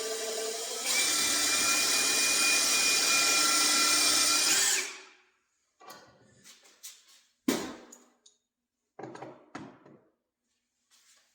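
Power drill boring into wood, running with a steady whine that gets louder about a second in as the bit bites, then stopping after about five seconds. A few knocks and clatters follow.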